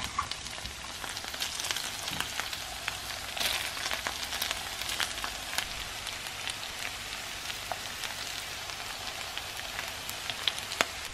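Beef strips and onions frying in a pan: a steady sizzle with scattered crackles and pops, while broccoli florets are added on top.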